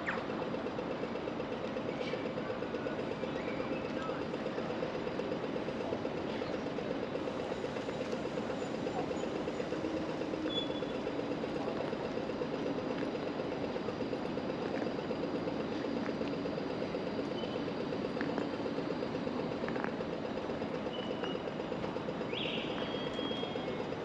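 Steady road and traffic noise from a car driving through city streets, with a few short high squeaks near the end.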